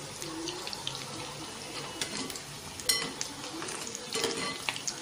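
Baby potatoes deep-frying in hot oil in a small pan: a steady bubbling sizzle, with a few sharp clicks of a steel slotted spoon against the pan as they are stirred, the loudest about three seconds in.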